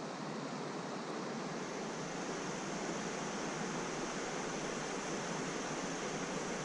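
Steady rushing of a shallow stream flowing over a rocky bed.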